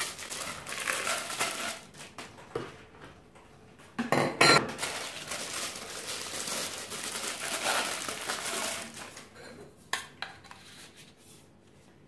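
Plastic packaging rustling and crinkling as vacuum-cleaner accessories are unwrapped and handled, with a sharp metallic clank about four seconds in and a shorter click near ten seconds.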